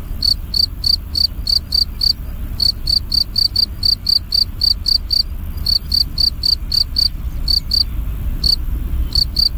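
A cricket chirping: short high chirps about four a second, with a few brief pauses, over a low steady rumble.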